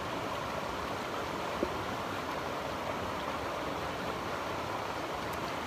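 A river rushing steadily, an even wash of flowing water, with one brief click about a second and a half in.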